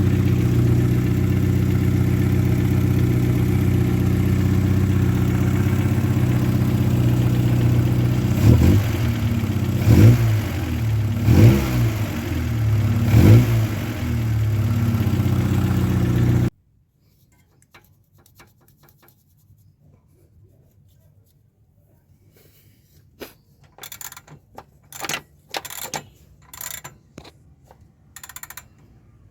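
VW Golf Mk1 engine running with a knocking the owner takes for piston slap, blipped four times in quick succession about halfway through. The engine sound cuts off abruptly and a few faint clicks and knocks follow.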